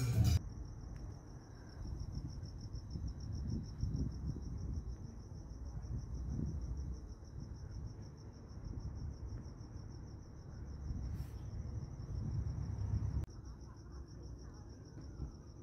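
A cricket trilling steadily at a high pitch, over a low rumble that drops away about thirteen seconds in.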